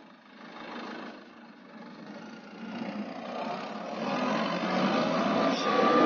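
John Deere W70 combine harvester's diesel engine running as the machine drives over bare ground. The engine grows louder from about three seconds in as it swings past close by, its pitch rising slightly.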